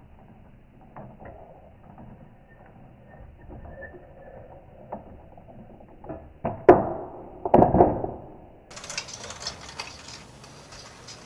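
Glass marbles clacking as one drops onto the wooden entrance ramp of a marble-run automaton and knocks into the queued marbles: two loud clacks about a second apart. Before them is the faint clatter of the running mechanism.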